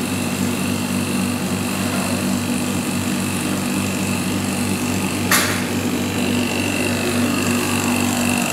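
Damp-proof course injection pump running steadily with a constant machine hum as it feeds fluid through the probes into the brickwork. A brief sharp sound cuts through about five seconds in, the loudest moment.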